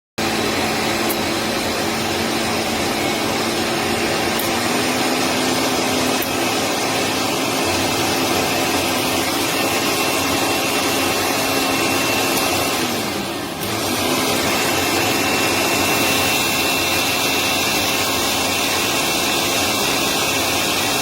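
Hamilton Beach Wave Crusher blender running steadily with a loud motor whir. About 13 seconds in the motor's pitch sags briefly, then picks back up.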